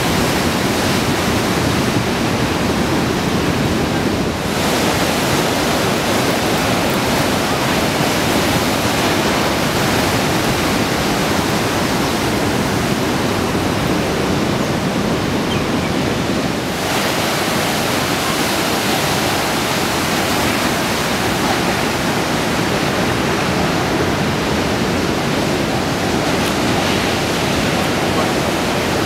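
Heavy surf of 8 to 12 foot waves breaking and washing ashore: a continuous rushing hiss with no separate crashes standing out. Its high end dips about four seconds in and grows brighter about seventeen seconds in.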